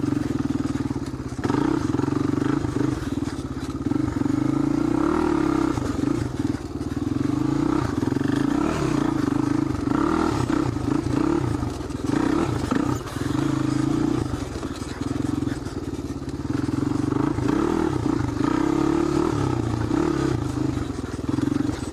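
Honda ATC350X three-wheeler's single-cylinder four-stroke engine running as it is ridden along a wooded trail, the throttle easing off briefly several times and opening up again.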